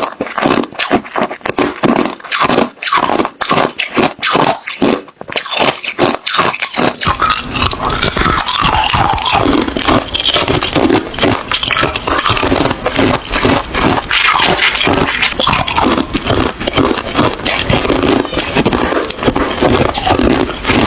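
Ice cubes being crunched up close: rapid separate crunches for about the first seven seconds, then denser, continuous crunching and scraping with a low rumble underneath.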